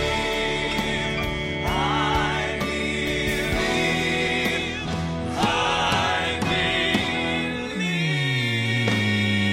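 Male gospel quartet singing long held notes in harmony with vibrato, over instrumental accompaniment. A low pitch slides downward near the end.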